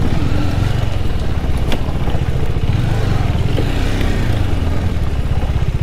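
Motorcycle engine running steadily while the bike is ridden.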